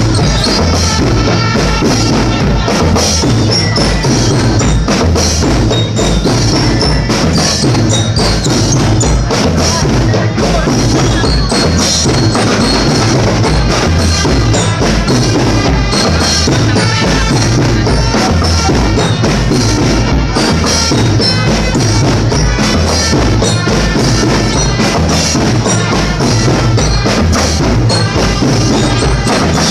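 Loud, continuous drum-heavy percussion music with a dense, steady beat.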